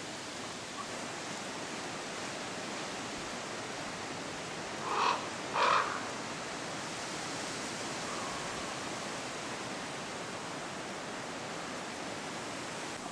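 Steady outdoor hiss of the forest, broken about five seconds in by two short harsh caws of a crow, a little under a second apart.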